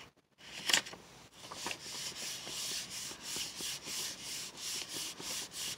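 Hands rubbing a sheet of paper pressed onto a paint-coated gel printing plate, a regular swishing of palm over paper at about three strokes a second. It starts with a short rustle as the paper is laid down.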